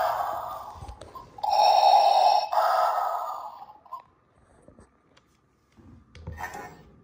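Darth Vader Funko Pop electronic figure playing Vader's mechanical respirator breathing sound effect through its small built-in speaker: the end of one in-and-out breath, then a second full breath, stopping about four seconds in.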